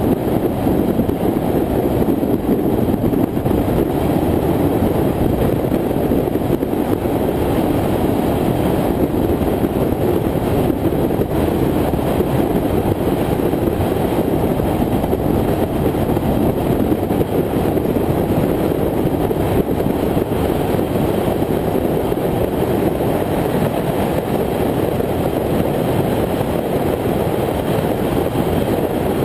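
Steady rush of wind and road noise from a car cruising at highway speed, picked up by a camera mounted on its hood.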